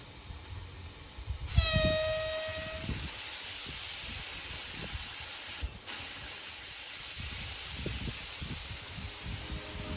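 Compressed-air spray gun spraying primer: a steady, loud hiss of air that starts about a second and a half in with a brief whistle, cuts out for a moment near six seconds as the trigger is released, then carries on.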